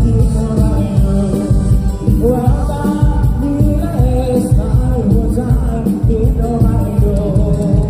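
Live mor lam band playing loudly through a PA system: a singer's melody carried over a steady, heavy bass-and-drum beat.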